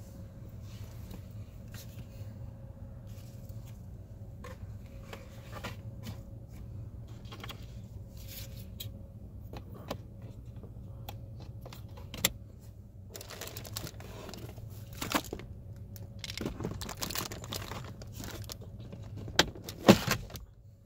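Plastic rustling, scraping and clicks of a car cabin air filter being slid into its housing behind the glove box and its cover and the glove box snapped back into place, with the sharpest, loudest clicks near the end as the glove box latches shut. A steady low hum runs underneath.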